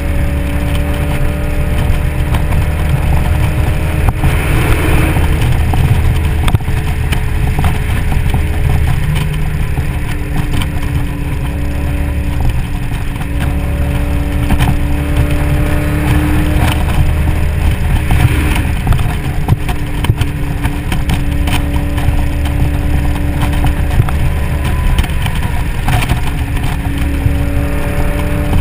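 2003 SVT Mustang Cobra, top down, cruising at a steady speed: its supercharged 4.6-litre V8 holds an even drone under heavy wind rush and road noise.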